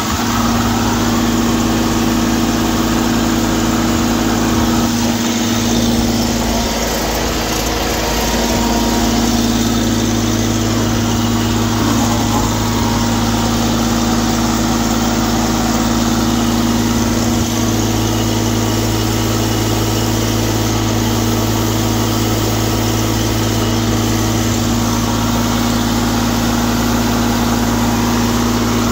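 Kubota WG750 three-cylinder gas engine of a Prochem carpet-cleaning unit running at a steady speed, with an even, unchanging hum.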